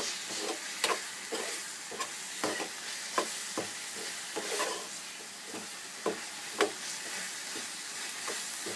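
Spiced masala with peas and cashews sizzling in hot oil in a pan while a spoon stirs it, knocking and scraping against the pan at irregular moments over the steady sizzle.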